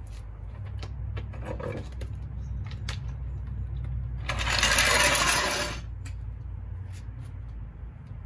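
Metal clinks and rattles of a hydraulic floor jack being let down and pulled out from under a scooter. Midway there is a loud rushing scrape lasting about a second and a half.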